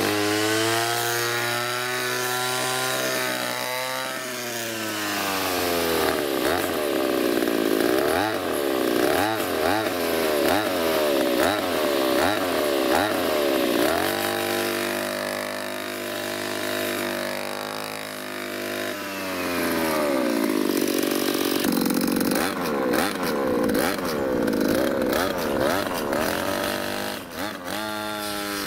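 Two-stroke brush cutter engine with an expansion-chamber exhaust, revved up and down through a motorcycle-style twist throttle. It holds high revs, drops back, then goes through a run of quick throttle blips about once a second, a steady high-speed stretch, and more blips.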